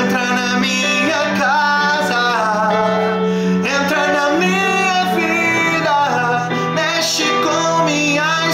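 A man singing a slow melody with gliding pitch, over instrumental backing music.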